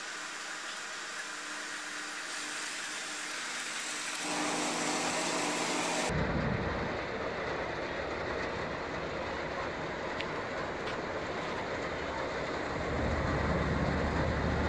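Steady hum and low rumble of a large sailing ship's engine as the ship motors slowly past close by, growing louder near the end. The background changes abruptly about six seconds in.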